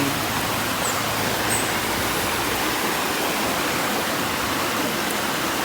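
River water rushing steadily, an even hiss with no change in level.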